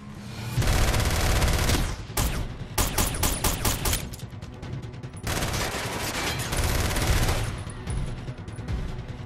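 Film gunfight sound: dense, rapid gunfire, with a run of separate sharp shots between about three and four seconds in.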